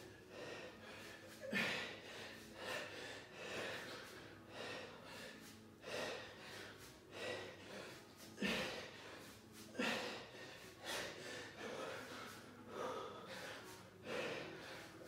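A man breathing hard with the effort of kettlebell swings: a short, forceful breath with each swing, about one every second and a half, steady through the set.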